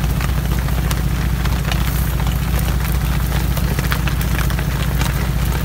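Steady low hum of an idling motor, with a few faint scattered clicks over it.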